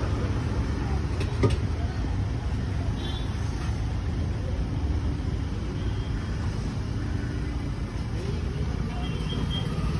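Steady low rumble of roadside street noise and traffic, with faint voices in the background and a single sharp knock about a second and a half in.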